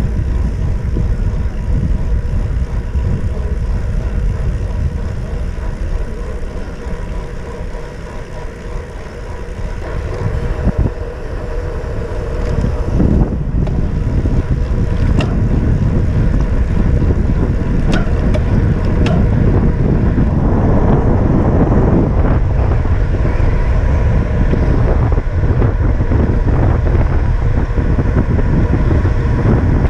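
Wind rushing over the microphone of a bicycle rider moving at speed, a steady low rumbling noise. It eases off about eight seconds in and builds back louder from about thirteen seconds.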